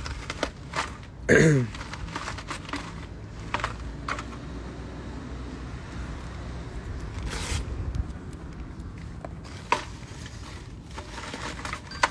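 Close handling noise at a phone's microphone: scattered rustles, crinkles and clicks, with a short falling voice-like sound about a second and a half in.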